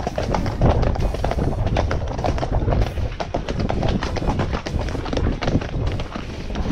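Hooves of ridden horses clopping on an earth and grass track: a continuous run of uneven hoofbeats.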